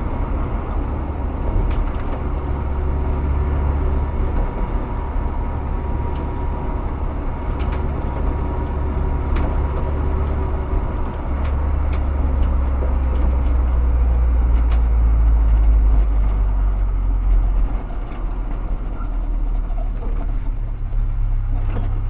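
A motor vehicle's engine running: a steady low rumble that swells a little past the middle, with faint light ticks over it.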